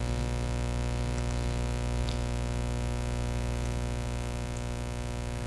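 A steady, unchanging low hum with a buzzy string of overtones.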